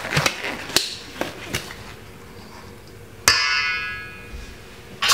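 A metal spoon strikes the stainless-steel mixing bowl about three seconds in, and the bowl rings out and fades over about a second. A few light ticks and rustles come before it.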